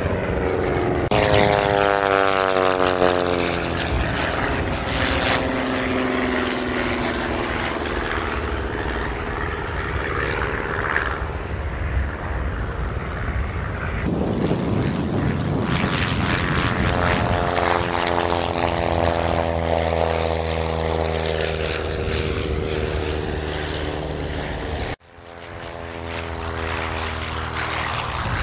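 Single-engine propeller light aircraft flying low passes one after another, their piston engines and propellers droning. The pitch falls as each plane goes by, and the sound changes abruptly between passes.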